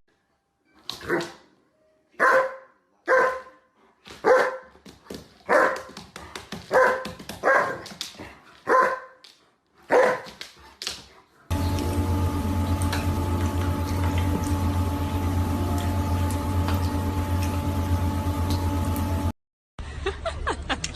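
A dog barking in a run of about ten short barks, roughly one a second. After a cut, a steady hum with a hiss underneath runs for about eight seconds and stops abruptly.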